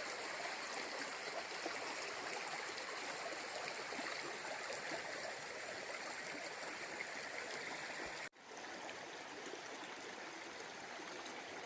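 River water flowing in a steady rushing stream. About eight seconds in, the sound cuts out for an instant and comes back a little softer.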